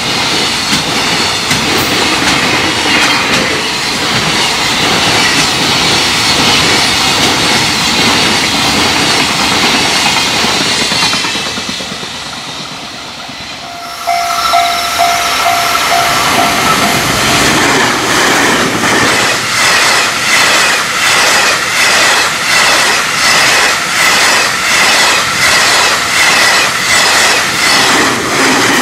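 Freight trains passing at speed. First a locomotive-hauled freight train runs by with a dense, steady rumble that fades away about twelve seconds in. Then another freight train passes close, its wagons' wheels clacking over rail joints about once a second.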